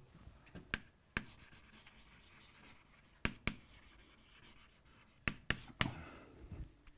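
Chalk writing on a blackboard: a few sharp taps of the chalk against the board, with faint scraping and rubbing between them.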